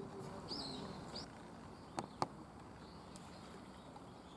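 A small bird chirping a couple of times, then two sharp clicks about a fifth of a second apart, over a quiet steady outdoor background hiss.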